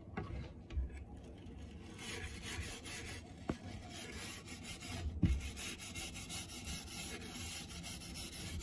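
Steel wool pad scrubbing a dirty, rust-stained window frame: a rasping scrub of quick back-and-forth strokes that gets louder about two seconds in, with a soft bump about five seconds in.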